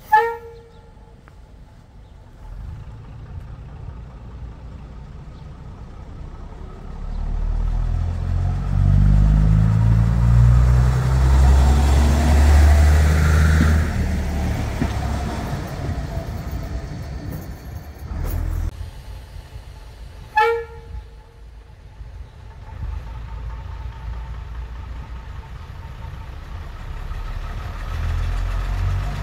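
A train gives a short, sharp toot, then another about twenty seconds later. In between, a train runs by with a heavy low rumble that swells up, peaks and dies away.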